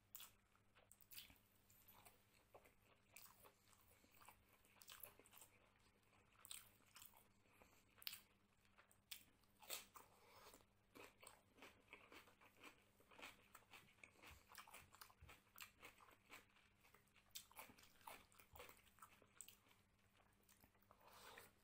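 Faint, close-up sounds of a person eating rice and mutton curry by hand: chewing, with many small irregular clicks and smacks, and fingers mixing rice on the plate.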